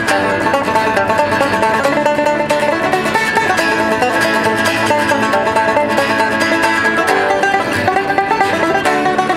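Banjo picked in a quick, continuous run of notes, with an acoustic guitar playing along underneath.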